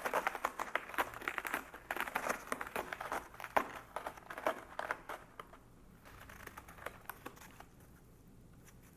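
Cat clawing a scratching post: rapid, rasping scratch strokes, densest for the first five seconds, then thinning out and stopping a couple of seconds before the end.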